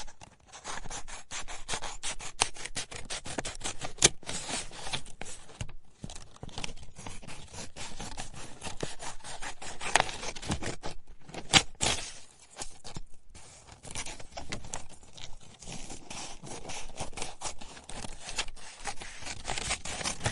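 Scissors cutting paper: rapid runs of crisp snips and the scrape of blades through the sheet, pausing briefly now and then, with a few sharper, louder snips.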